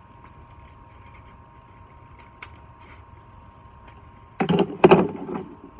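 Faint scattered clicks, then a loud rustle of a paper label and a chip bag being handled, in two quick bursts about four and a half seconds in.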